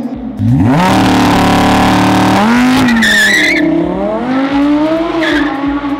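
Lamborghini Huracán's naturally aspirated V10 revved hard through its exhaust: the engine speed climbs steeply about half a second in and is held high for about two seconds, then drops and is blipped up again near the end.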